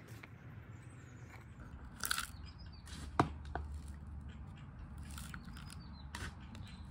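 Gritty potting mix being added into a small plastic pot: soft rustling and scraping, with a sharp click about three seconds in.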